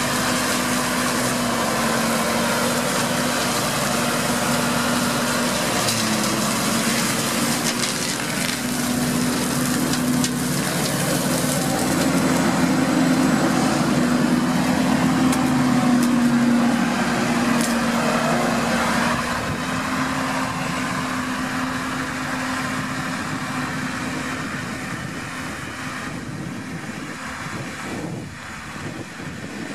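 New Holland TM140 tractor's six-cylinder diesel running under load while its PTO spins a Shelbourne flail hedge-cutter head cutting verge grass: a steady mechanical hum with a noisy rush of flails and cut material and scattered brief clicks of debris. It fades over the last few seconds.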